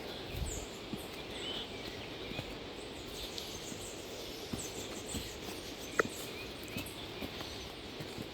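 Footsteps on a rough forest trail, irregular knocks and scuffs over steady outdoor ambience, with short bird chirps. A single sharp click stands out about six seconds in.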